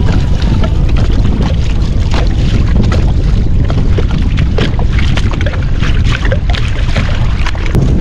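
Wind buffeting the microphone in a heavy low rumble, with water splashing and slapping against the kayak's hull as it moves through choppy water.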